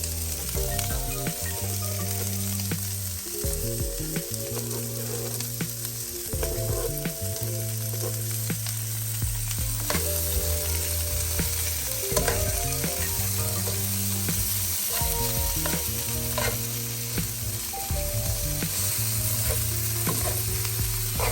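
Oyster mushrooms, red and green peppers and onion sizzling in a frying pan, with occasional light clicks of stirring. Low background music notes change every second or two underneath.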